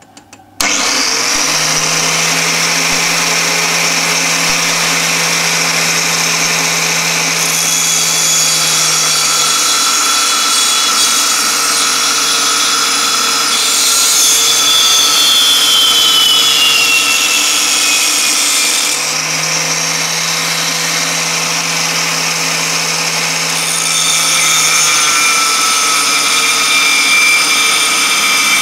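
Angle grinder with a cutting disc running and cutting slots into a thin-walled steel tube: a loud steady grinding whine of disc on metal that starts about half a second in. Around the middle a high whine slides down in pitch.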